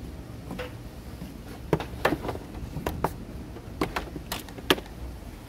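A string of irregular clicks and knocks as a battery cable in plastic wire loom is pulled up through a pickup's engine bay, knocking against parts on the way.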